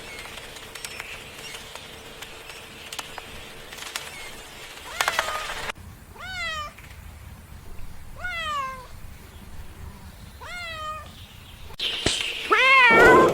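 A cat meowing: after about five seconds of faint background noise, three meows about two seconds apart, then a louder, harsher meow near the end over a rush of noise.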